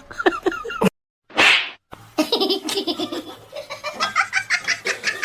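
Laughter in quick pulsing bursts, broken by two abrupt cuts to silence, with a short hissing burst between them about a second and a half in.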